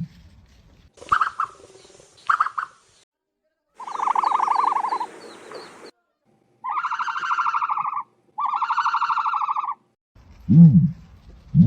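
Ostrich calls: two short calls, then a longer buzzing call with faint chirps above it, then two buzzing calls of about a second and a half each, each stopping abruptly.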